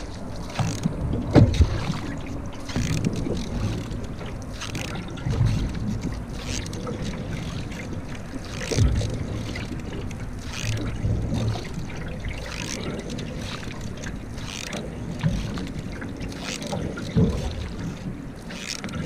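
Single-blade canoe paddle strokes in water, a swish and splash about every two seconds, over the steady rush of water along the hull and wind on the microphone.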